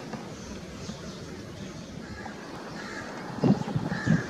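Wind buffeting the microphone over a low, steady outdoor rumble, with two stronger gusts in the last second.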